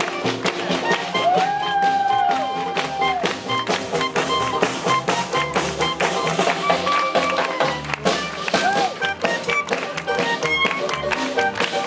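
Live swing band with upright bass, banjo, snare drum and clarinet playing an up-tempo tune with a steady driving beat, with a long held note about a second in.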